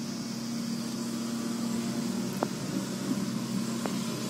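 Steady low hum over a hiss, with two faint clicks, one about two and a half seconds in and one about four seconds in.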